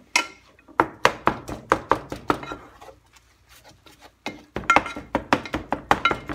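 Wooden spatula chopping and breaking up ground beef as it cooks in a nonstick frying pan, knocking against the bottom of the pan in short strokes. The strokes come about three a second, stop for about a second past the middle, then resume faster.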